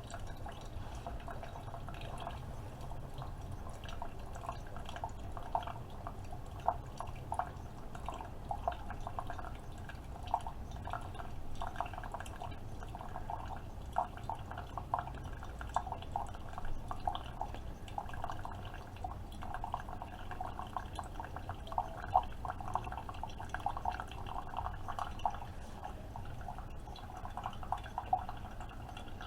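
Keurig K-Supreme Plus coffee maker brewing: coffee streams and drips into the cup in small, irregular splashes over a steady low hum from the machine.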